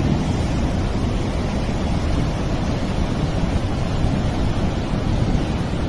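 Fast, muddy floodwater of a swollen river rushing past in a steady, loud rush of water.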